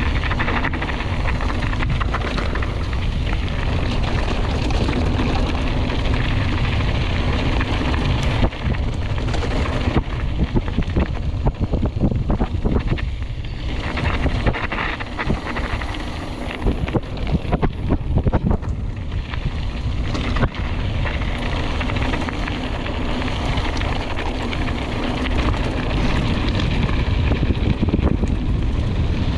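Mountain bike descending fast, heard from an onboard action camera: steady rushing wind on the microphone and trail noise. Through the middle there is a rough stretch of quick knocks and rattles.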